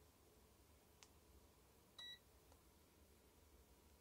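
A single short, high electronic beep about halfway through, over near silence, with a faint click about a second in.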